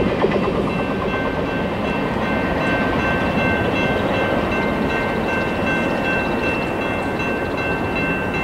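Freight train rolling past: a steady rumble and rattle of cars on the rails, with a faint high steady squeal over it from about a second in.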